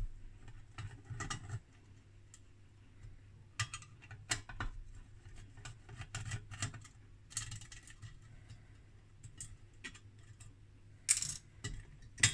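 Screws being turned out of a metal cavity-filter lid with a screwdriver and handled: irregular small metallic clicks and scrapes, with two sharper clinks near the end.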